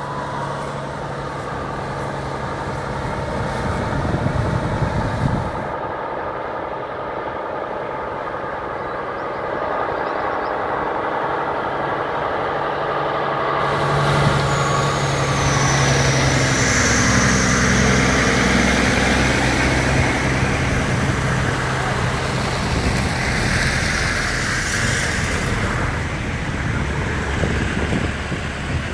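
Heavy trucks' engines running steadily as they drive through floodwater over the road, their tyres throwing up spray; the engine hum and the rushing of water both grow louder about halfway through as a truck passes close by.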